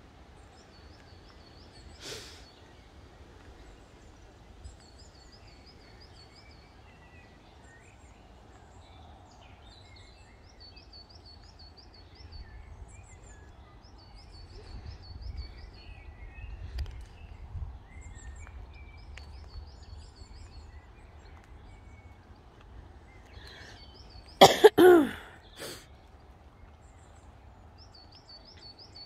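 A bird sings a short, high trilled phrase again and again, every few seconds, over a low steady rumble. About three-quarters of the way through a person coughs loudly, then once more, softer.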